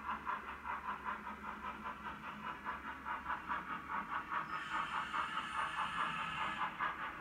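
Steam locomotive sound from a YouChoos DCC sound file in a Bachmann OO gauge LMS 1P 0-4-4 tank engine, played through the model's small speaker: a steady quick rhythm of exhaust chuffs as the loco runs. A hiss joins in for about two seconds past the middle.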